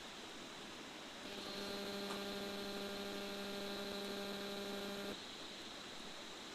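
A steady, even hum with a buzzy edge that switches on about a second in and cuts off suddenly about four seconds later, over a faint steady hiss.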